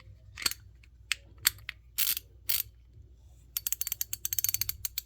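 A Toolant 90-tooth 3/8-inch compact head ratchet clicking as its pawl runs over the gear while it is worked to check its function. There are a few separate clicks at first, then a fast run of fine, closely spaced clicks from a little past halfway.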